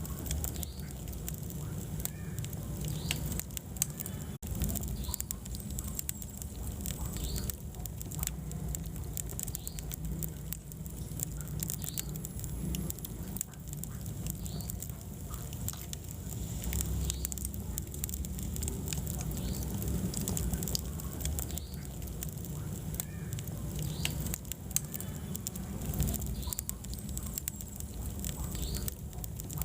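Wood fire burning in a fireplace: a steady low rumble of flames with frequent small crackles and pops throughout.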